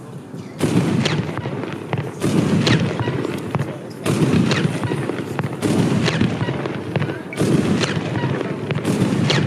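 Consumer firework battery (cake) firing shot after shot: six loud bangs about a second and a half to two seconds apart, each trailing off before the next.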